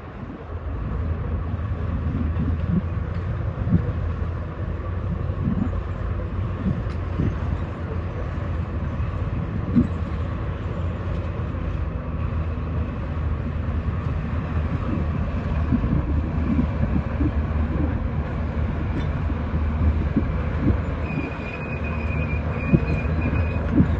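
Heavy diesel earthmoving machinery running steadily with a low rumble. Irregular metallic clanks and knocks run through it, and a brief high squeal comes near the end.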